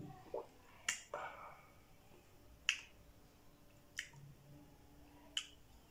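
Mouth clicks and lip smacks as a sip of neat whisky is tasted: four sharp clicks, one every second and a half or so.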